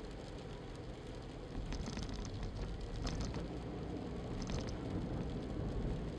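Car driving on a wet road, heard from inside: a steady low rumble of engine and tyres, with short hissing bursts about two, three and four and a half seconds in.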